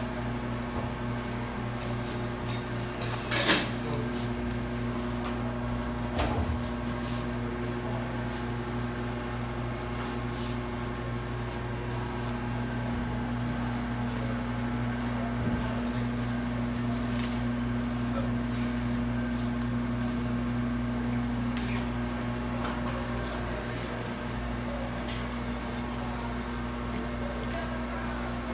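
Butchers' knives clinking and knocking now and then as a beef carcass is cut on a cutting block, over a steady electric hum. The sharpest clink comes about three and a half seconds in.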